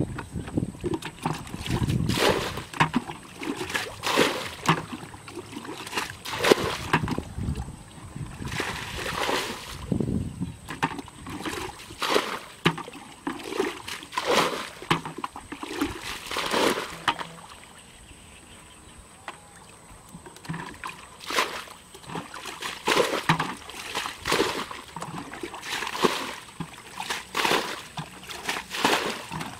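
Muddy water being bailed out of a shallow ditch with a plastic bucket: repeated scooping splashes and poured water sloshing out onto the bank, with a short lull a little past the middle. The ditch is being emptied to get at the fish.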